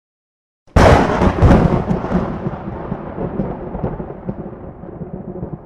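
A thunderclap: a sudden sharp crack about a second in, followed by a rumble that slowly dies away.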